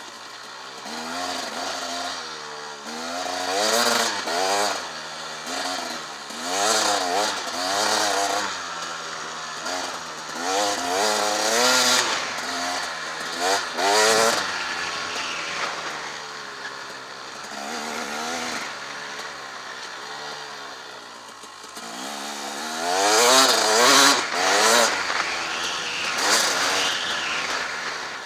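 Husaberg TE 300 enduro motorcycle's single-cylinder two-stroke engine being ridden hard, revving up and easing off over and over as the throttle is worked. The pitch rises and falls many times, with the loudest run of revving a little past three-quarters of the way through.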